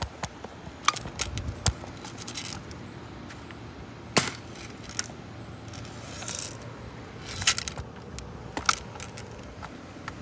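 Several sharp clicks and light metallic clinks, irregularly spaced, over a faint steady background.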